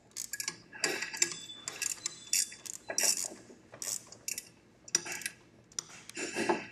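Irregular light metal clicks and clinks from tightening a bolt on a gas-forge burner and handling the metal parts.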